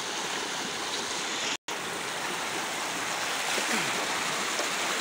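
Fast-flowing stream of water rushing, a steady even noise. The sound cuts out for an instant about a second and a half in.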